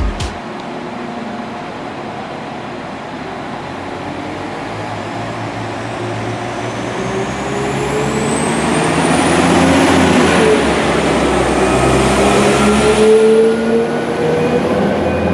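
Northern Class 195 diesel multiple unit pulling out along the platform. Its diesel engine rumbles and a whine rises in pitch as it gathers speed. The sound grows louder as the train passes.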